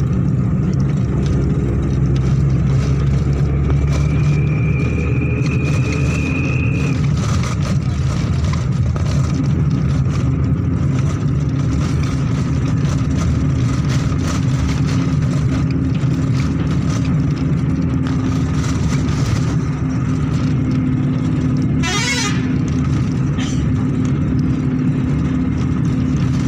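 Engine and road noise heard inside a moving road vehicle, a loud steady low drone, with a vehicle horn sounding briefly toward the end.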